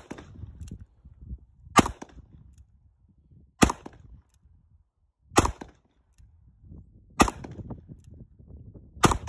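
Ruger New Vaquero single-action revolver in .45 Colt being fired: five shots at an even, unhurried pace, about one every two seconds.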